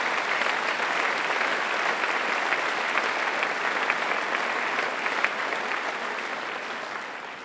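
Audience applauding: a steady patter of many hands clapping that tapers off near the end.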